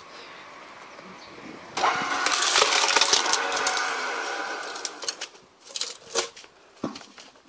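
Homemade screw-cone log splitter: about two seconds in, its spinning threaded steel cone bites into a log round with a sudden loud grinding noise as the wood is forced apart, fading over the next few seconds. Then a few sharp knocks as the split pieces of wood knock together.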